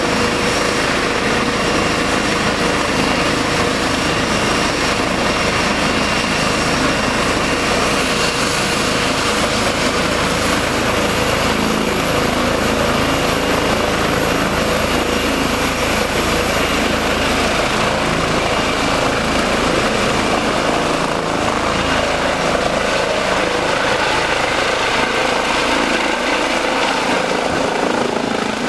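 Air-ambulance helicopter running at power and lifting off: a steady loud rotor and turbine noise with a high turbine whine that rises in pitch about halfway through as it spools up for takeoff.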